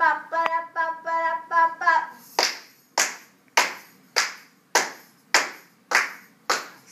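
A voice gives a short sung or spoken lead-in, then hands clap a steady, even beat: about eight sharp claps, a little under two a second, setting the tempo before the song comes in.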